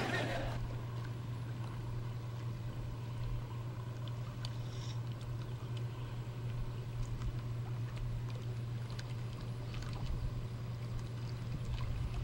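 A boat motor running steadily, heard as a constant low hum.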